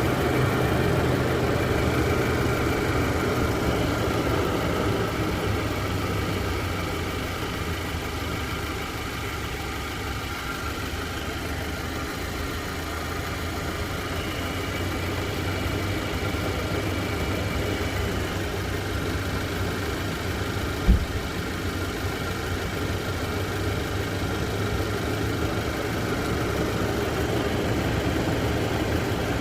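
Nissan Patrol's engine idling steadily with the air conditioning switched on, during a refrigerant pressure check. A single sharp click about two-thirds of the way through.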